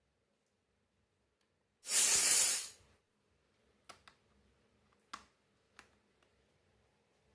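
A burst of hissing noise lasting about a second, then four light clicks as small plastic toy-kitchen pieces or packaging are handled.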